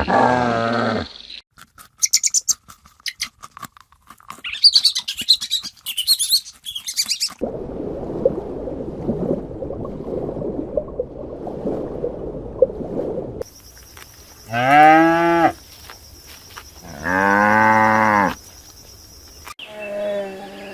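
A string of different animal calls. It opens with the end of a pitched call, then about six seconds of clicking and high chirping, then about six seconds of rough, noisy calling. It ends with two long cattle moos a couple of seconds apart and a fainter call after them.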